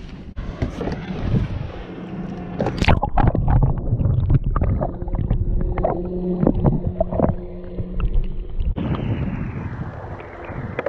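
Water splashing and sloshing around a camera dunked and held underwater beside a kayak, with knocks and clicks, the loudest about three seconds in. Near the end it changes to water rushing along the hull of the moving kayak.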